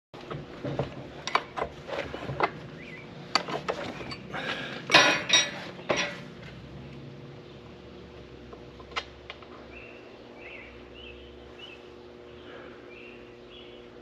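A run of sharp metallic knocks and clinks, hand tools striking steel, loudest around five seconds in and stopping about six seconds in, with one more knock near nine seconds. A steady hum runs underneath.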